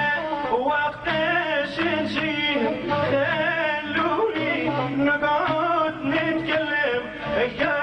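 Live traditional Tunisian music: a man sings a long, wavering, ornamented melodic line over instrumental accompaniment with steady low notes and drum strokes.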